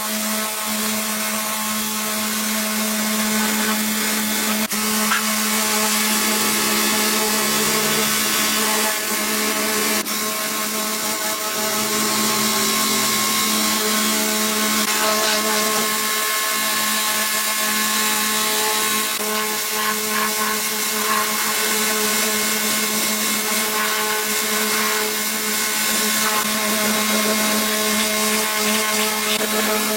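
An electric power tool running steadily at constant speed, a continuous motor hum over a dense whirring hiss.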